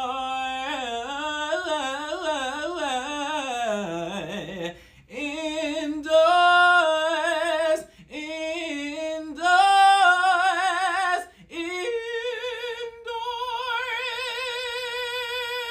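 A solo voice singing unaccompanied with heavy vibrato, in several short phrases broken by brief pauses. It climbs to a long held high note near the end.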